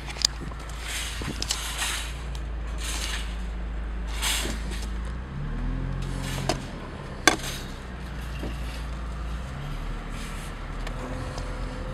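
Car engine and road hum heard from inside the cabin, low and steady, its pitch shifting about halfway through. Several brief rushes of hiss in the first half and a few sharp clicks and knocks from handling inside the car.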